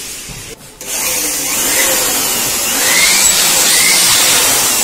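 Handheld electric air blower running, blowing dust out of the opened LCD TV's circuit boards. It cuts out sharply just under a second in, then comes back and builds up to a steady rush of air.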